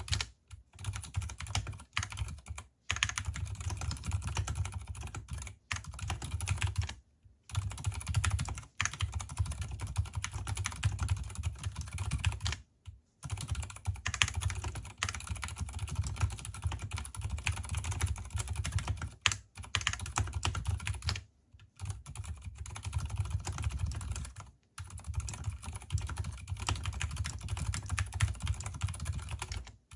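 Continuous typing on an Mstone Groove T mechanical keyboard with unlubricated Gateron silent brown switches and lubed stabilizers: a steady stream of dampened keystrokes broken by a few short pauses.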